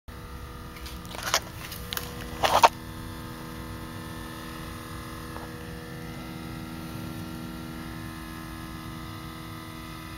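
A steady electrical buzzing hum from the rear of a parked 2012 Scion tC near the exhaust, with the engine off; the owner suspects the exhaust or the fuel pump. A few short rustling knocks, the loudest sounds, come in the first three seconds.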